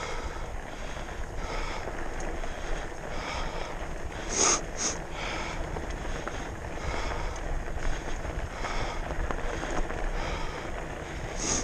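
A person breathing hard and rhythmically from exertion, about one breath every second and a half to two seconds, over wind rumbling on the microphone. A sharper double puff of breath comes about four and a half seconds in.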